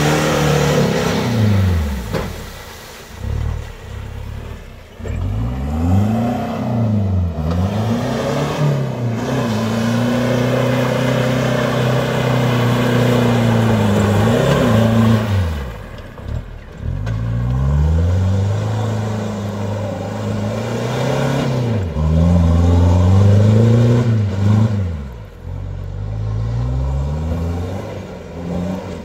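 Mitsubishi Triton's 2.8-litre 4M40T turbo diesel engine, running on newly fitted injectors, revving up and falling back again and again under hard driving, held at high revs for several seconds twice.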